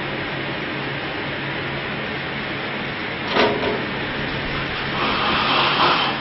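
Steady whir and low hum of the grow room's ventilation and lighting equipment. A short knock comes about three seconds in, and there is louder rustling near the end as plants and gear are handled.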